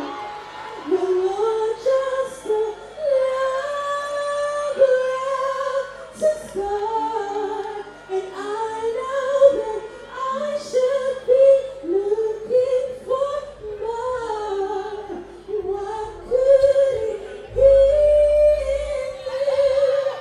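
A woman singing live into a stage microphone, gliding between notes and holding some of them long.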